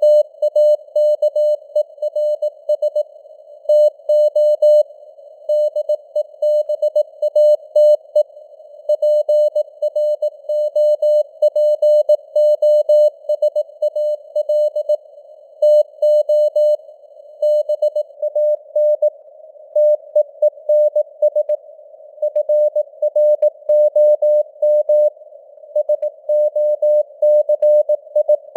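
Morse code sent at 18 words per minute: a single mid-pitched tone keyed on and off in dots and dashes, over a narrow band of hiss from simulated radio noise.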